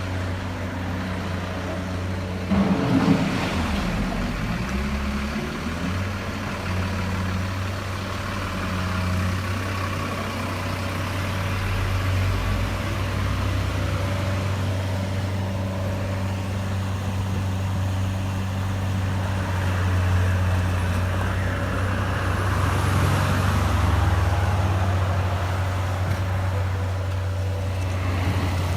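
Radio-controlled toy construction truck running: a steady engine-like hum, with a brief dip and rise in pitch about three seconds in.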